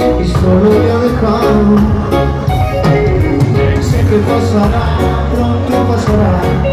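Live reggae band playing: electric guitars, bass, drums and keyboard on a steady beat, with a male voice singing over it.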